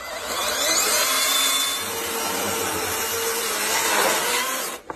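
Cordless battery chainsaw ripping lengthwise through a log: a steady electric motor and chain whine mixed with the rasp of the chain cutting wood. It stops abruptly near the end.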